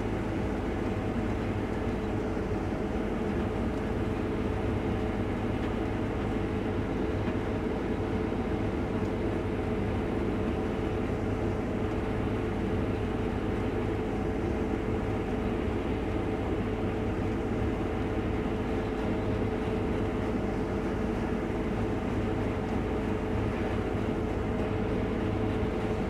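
Combine harvester running steadily while harvesting wheat, heard from the operator's seat: an even machine drone with a steady held tone over it.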